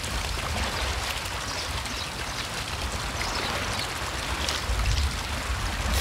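Sea water washing and splashing among shore rocks, a steady rushing hiss with small crackles, with wind rumbling on the microphone.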